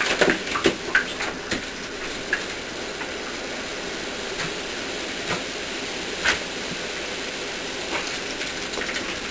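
Shower running: a steady spray of water hitting the floor of a shower stall. A few short splashes and knocks stand out as a dog jumps and snaps at the stream.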